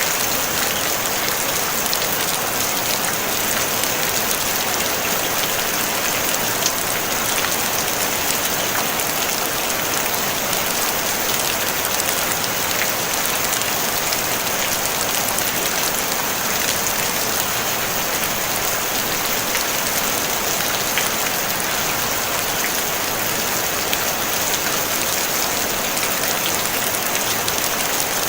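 Steady rain falling on a tin roof: a dense, even hiss of many small drop ticks, with no thunder.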